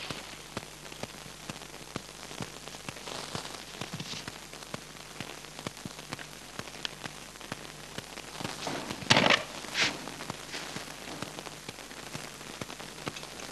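Hiss and crackle of a worn old film soundtrack, with a steady low hum. Two short knocks come about nine seconds in, a second apart.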